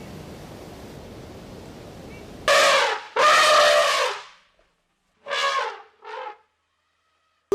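An animal calling four times over a steady background hiss: two loud calls, the second about a second long, then two shorter ones.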